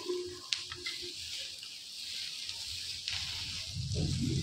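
Steady hiss of a vegetable sizzler sizzling on its hot plate, with a sharp click about half a second in and a low hum rising near the end.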